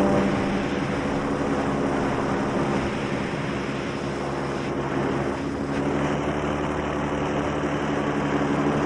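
Paramotor engine and propeller running steadily in flight, a continuous drone with a rushing hiss.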